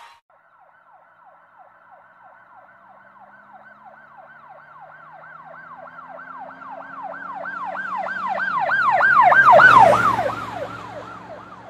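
Emergency vehicle siren wailing in quick rising-and-falling sweeps, about three a second. It grows steadily louder, is loudest about ten seconds in, then fades as the vehicle passes.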